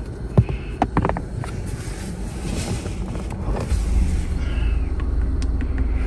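A few light clicks and taps of small plastic shift-knob adapters being handled and tried on the metal shift lever, then a steady low rumble that grows louder from about four seconds in.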